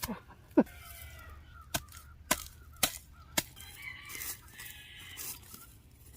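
A digging tool striking frozen ground: four sharp strikes a little over half a second apart, with birds calling around them.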